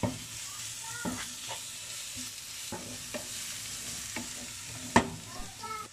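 Grated onion, carrot and red pepper sizzling in oil in a non-stick frying pan, stirred with a wooden spoon that scrapes and knocks against the pan several times, the sharpest knock about five seconds in.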